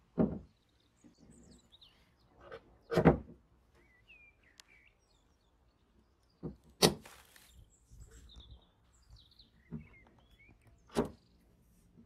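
The lever-operated wick cap and spark wheel of a large vintage Nesor table lighter being worked, giving about six sharp metal clicks and clacks. The loudest come about three and seven seconds in. Birds chirp faintly in the background.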